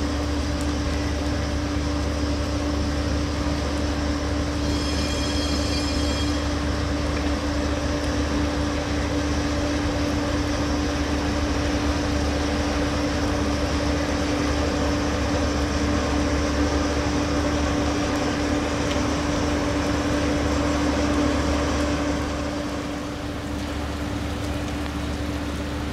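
060-EA electric locomotive running while shunting: a steady hum over a low rumble. A brief high-pitched squeal comes about five seconds in, and the sound eases slightly near the end.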